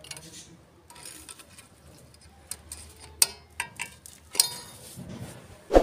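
Scattered metallic clinks and taps from wire and metal parts being handled. A few sharp ones come about three seconds in, and the loudest knock comes right at the end.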